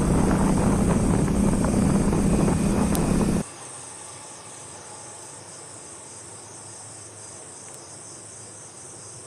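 Vehicle travel noise, a steady engine hum with wind rush, for the first few seconds. It cuts off suddenly to quiet outdoor background of insects chirring steadily in a high, pulsing drone.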